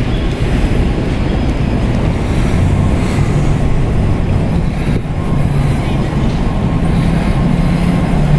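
Steady low rumble of city street traffic with a constant engine hum.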